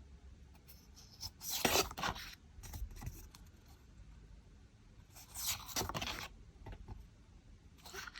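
Large paper sticker sheets being handled, sliding and rubbing against each other in short scrapes, the two longest about two seconds and five and a half seconds in.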